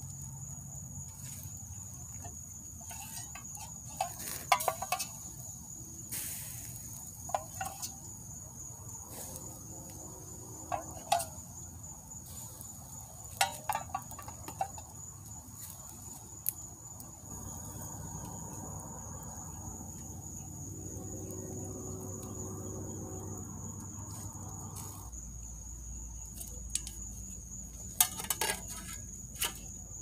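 Night insects keeping up one steady high-pitched trill, over a log campfire crackling with a dozen or so sharp pops scattered through, the loudest sounds, several in quick clusters.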